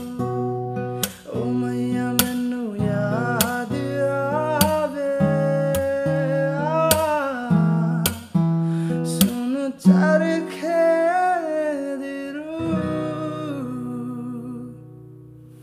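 Acoustic guitar strummed about once a second in held chords, with a wordless sung melody over it from about three seconds in; the playing fades near the end.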